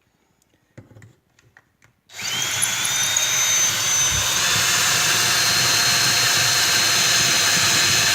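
Porter-Cable power drill starting about two seconds in with a rising whine, then running steadily at speed as it bores a hole through a rubber cutting edge. A few light clicks come before it starts.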